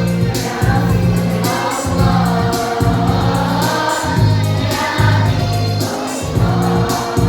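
Choir singing with instrumental accompaniment, a low bass note changing about once a second beneath the voices.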